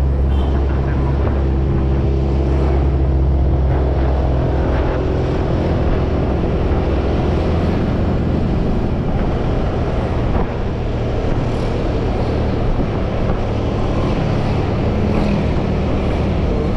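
Honda scooter ridden along a road, its small engine running steadily under a strong low rumble of moving air and road noise.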